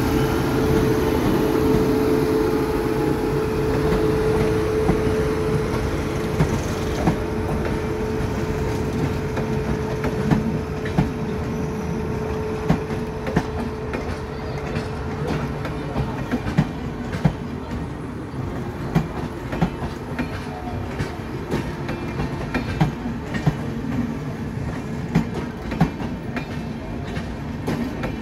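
An Indian Railways electric locomotive passes with a steady hum that fades away over the first ten seconds or so. Passenger coaches then roll by, their wheels clicking over the rail joints in a clickety-clack that grows more frequent.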